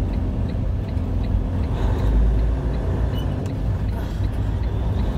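Steady low rumble of a semi-truck's diesel engine and road noise heard inside the cab while driving, swelling a little about two seconds in, with a faint regular ticking.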